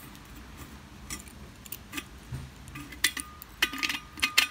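Thread tap turned by a tap wrench in the thin stainless-steel wall of a thermos: sharp metallic clicks and clinks, sparse at first, then quicker and louder from about three seconds in, some followed by a brief ringing of the metal.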